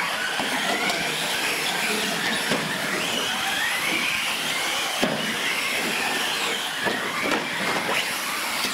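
Several radio-controlled trophy trucks racing on a dirt track: their motors whine, rising and falling in pitch with the throttle, over a steady noise of tyres on dirt. A few knocks from trucks landing or tumbling, the clearest about five seconds in.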